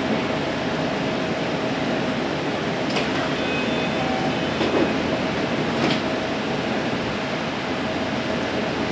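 Electric commuter train standing at the platform, its onboard equipment giving a steady hum with a faint constant tone. Two short clicks, about three and six seconds in.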